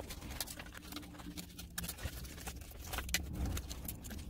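Small children's scissors snipping through paper, an irregular run of quick, light snips.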